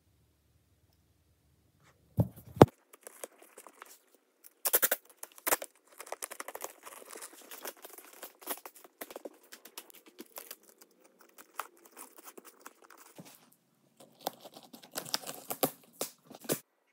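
Duct tape being pulled off the roll and torn into strips, in irregular ripping and crackling stretches with a few sharp snaps, starting about two seconds in.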